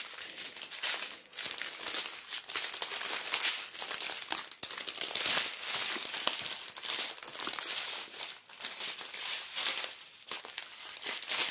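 Small clear plastic bags of diamond-painting drills crinkling and crackling steadily as they are handled.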